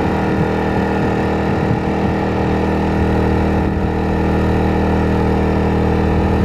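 Pulsar 2300 (G2319N) inverter generator running steadily at close to 5,000 RPM, a higher-pitched engine note than a Honda EU2000i.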